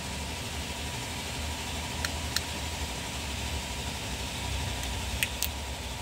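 A few faint plastic clicks as the cover of a corroded truck horn relay is pried off with a thin wire: a pair about two seconds in and another pair about five seconds in. Under them runs a steady low rumble.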